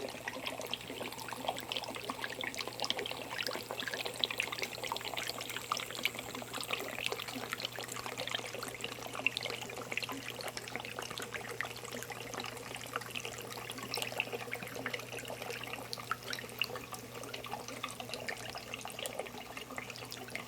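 Water in a tabletop stone fountain trickling and dripping continuously into its basin, full of small splashes, over a steady low hum.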